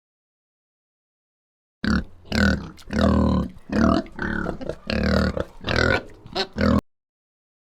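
Domestic pig grunting: a quick run of about nine short grunts over some five seconds, starting about two seconds in.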